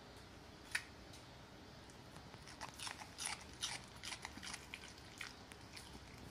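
West Highland White Terrier crunching and chewing cucumber: a single sharp crunch about a second in, then a quick, irregular run of crisp crunches from about two seconds in until near the end.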